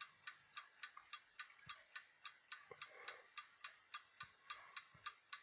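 Faint, steady ticking of a 1960 Swiss Neuchatel mantel clock's anchor escapement with a double 'squirrel cage' escape wheel, about four sharp ticks a second.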